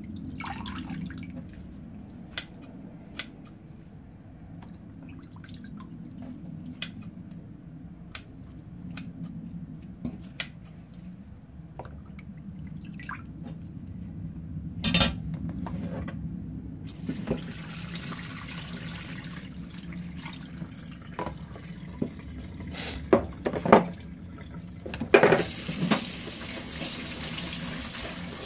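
Water dripping and splashing in a kitchen sink with scattered sharp knocks, then a tap turned on about two-thirds of the way through and left running, louder near the end.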